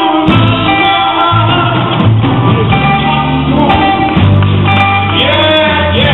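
Live gospel group performance: a band with bass and guitar playing while singers hold and bend long notes.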